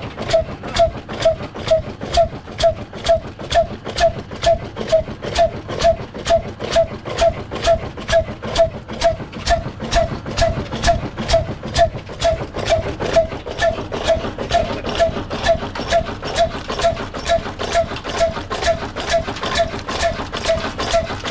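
Old Indian-made copy of a Ruston horizontal engine with a big flywheel, running steadily, its sharp knocks coming evenly at about three a second.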